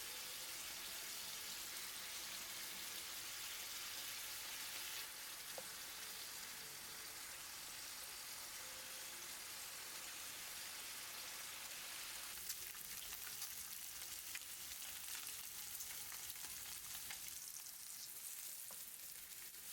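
Food frying in a pan: a steady sizzle, with a few sharp pops and ticks starting a little past halfway.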